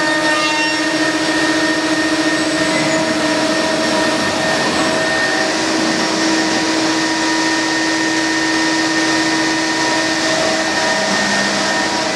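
CNC machining centre running as it machines wooden stair treads: a steady high whine over a loud, even rushing hiss.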